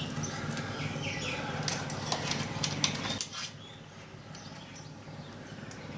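Light clicks and rustling of hands handling motorcycle wiring, over a steady low hum; the handling noises thin out about three seconds in.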